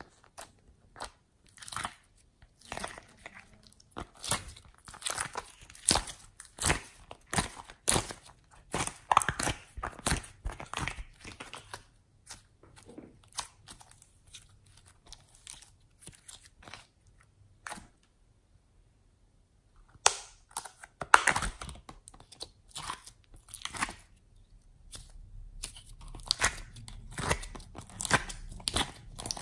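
Sticky slime being pressed, squeezed and stretched by hand, giving dense wet crackling and popping clicks. A brief quiet pause about two-thirds of the way through, then the squishing resumes.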